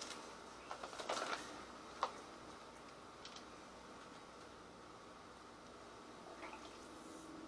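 Quiet kitchen handling sounds: a paper sugar bag rustling about a second in, a sharp knock about two seconds in, then a faint hiss of sugar being poured into a plastic bowl near the end.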